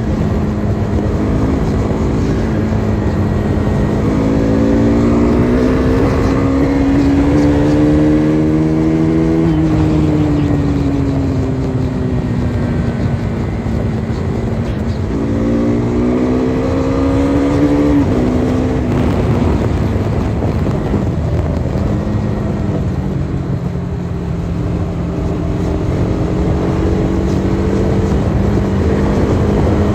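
KTM RC 390's single-cylinder engine under way, twice climbing in pitch as the bike accelerates and easing back as the throttle is rolled off. The second climb ends in a sudden drop, and the engine then holds a steadier pitch, over a constant rush of wind and road noise.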